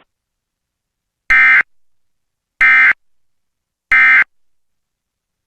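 Emergency Alert System end-of-message code: three identical short bursts of SAME digital data tones, about 1.3 seconds apart, marking the close of the alert.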